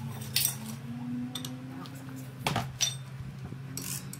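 Steel hand tools, a wrench and socket extension, clinking against each other and the steering parts while the inner tie rod is tightened: about five sharp metallic clinks spread out, over a steady low hum.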